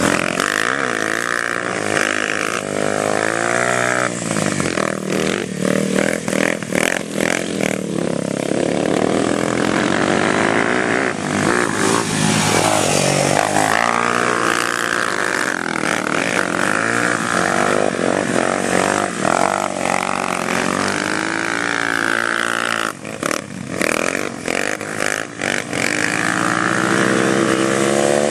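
ATV engine revving hard and easing off over and over as the quad is drifted, its pitch rising and falling. There are choppy stretches of quick on-off throttle about a fifth of the way in and again near the end.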